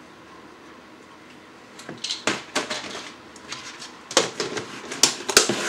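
Irregular clattering and knocking of small hard objects being handled, in two bursts starting about two and four seconds in.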